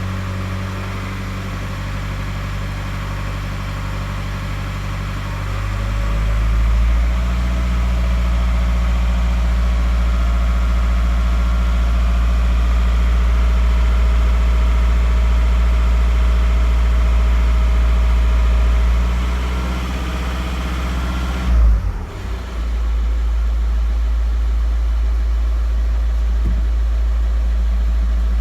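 Skoda Octavia A5's 1.9 TDI pump-injector four-cylinder diesel running, in an engine where the owner reports a knock. The engine note gets louder and shifts about six seconds in, and a sudden thump about 22 seconds in is followed by a duller sound as the engine keeps running.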